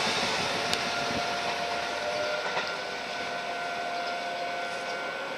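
Ryutetsu 5000-series electric train running away from a level crossing, its rail noise fading, while the crossing's warning alarm keeps ringing with a steady tone.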